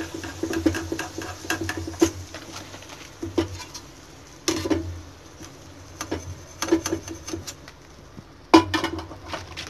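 Perforated steel skimmer scraping and clinking against a stainless steel kadai of frying oil while fried cauliflower bajji and crumbs are lifted out. Irregular light taps with several sharper clangs, the loudest near the end.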